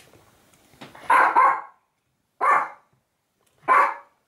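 A dog barking: a quick double bark about a second in, then two single barks a little over a second apart.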